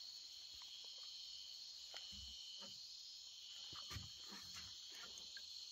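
Faint, steady high-pitched chirring of crickets and other night insects, with a few soft knocks scattered through it.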